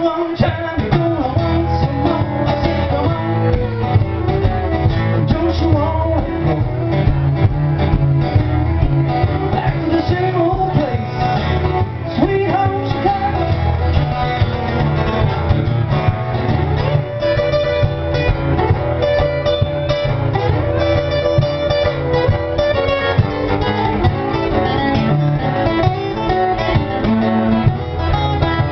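Live acoustic folk music: two acoustic guitars strumming with a fiddle playing along, and singing at times.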